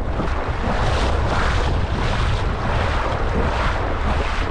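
Strong wind buffeting the microphone as a steady low rumble, with water splashing as a retriever dog bounds out through shallow marsh water.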